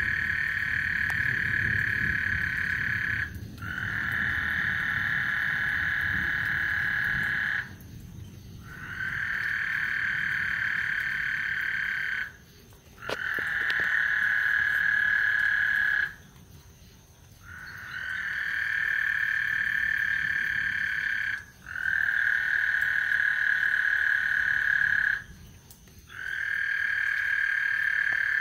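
Frogs calling in a chorus of long, steady high-pitched calls, each lasting three to four seconds with short breaks between, about seven in a row.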